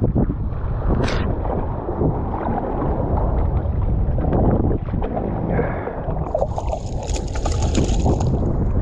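Wind buffeting the microphone over sloshing surf water, with a burst of splashing for about two seconds near the end as a hooked speckled trout thrashes at the surface while it is grabbed by hand.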